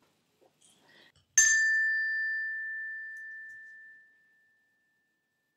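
A small bell struck once, a single clear ring that fades away over about three seconds: the cue to turn the page in a read-aloud picture book.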